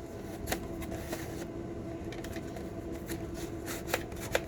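Scattered light clicks and rustles of packaging and items being handled, with a couple of sharper ticks near the end, over a faint steady hum.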